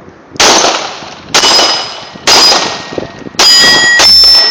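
Five 9mm shots from a Glock 17 pistol, roughly one a second with the last two quicker, each followed by the ringing clang of a struck steel target plate.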